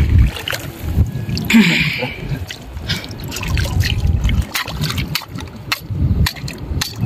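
Shallow seawater splashing and trickling as a person wades through it in slide sandals, with short sharp splashes at each step.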